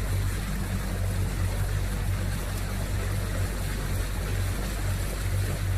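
Motorboat engine running steadily, a constant low hum, under the rush of water and wind as the boat moves.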